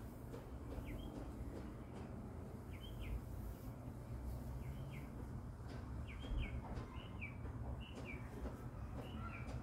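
A bird chirping: short single chirps every second or so, coming closer together in the second half, over a steady low rumble.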